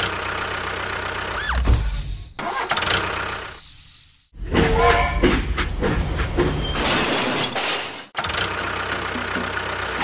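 Engine running, heard in several short segments that cut off abruptly one after another.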